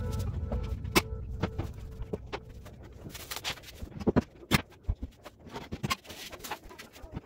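Irregular light knocks and clicks of a wooden shelf board being handled and fitted into a lower cabinet. Background music fades out in the first second or so.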